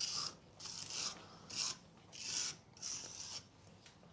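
Repeated scraping strokes of a hand tool cleaning rust and debris off the car's steel wheel-hub flange so the new brake disc will sit flat, about six uneven strokes.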